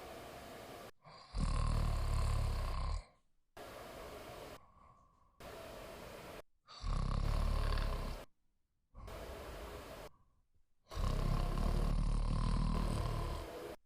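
A person snoring: three loud snores about four to five seconds apart, with quieter breaths between them.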